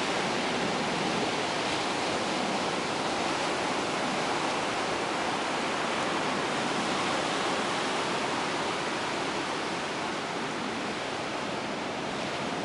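Ocean surf washing steadily onto a shallow shore, a continuous wash of breaking water without distinct single crashes, easing a little near the end.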